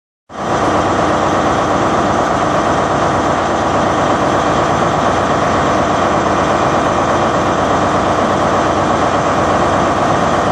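An engine running steadily at idle, unchanging throughout.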